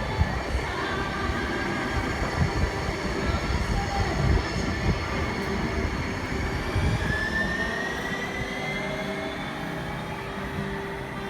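Siemens S70 light rail train running past, with a low rumble of wheels on rail and whining tones from its motors. One tone rises gently about seven seconds in, and the sound slowly fades.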